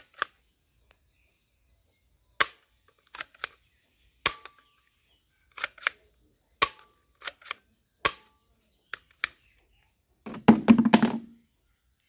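Plastic toy air pistol being handled and dry-fired: a string of sharp, separate plastic clicks from its cocking and trigger mechanism, a few with a brief ring. A little after ten seconds in comes a louder, denser cluster of clicks with a low buzz.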